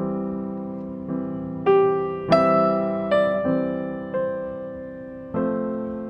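Background piano music: slow, gentle notes and chords, each struck and left to ring and fade, about one a second.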